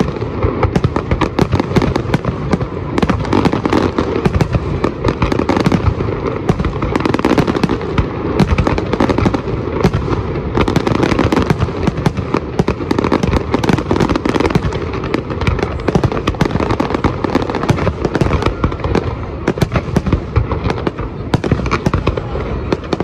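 Fireworks display: a dense, continuous barrage of many rapid bangs and crackles with no let-up.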